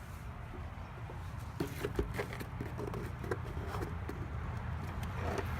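Scattered light clicks and taps of things being handled, starting about a second and a half in, over a low steady background rumble.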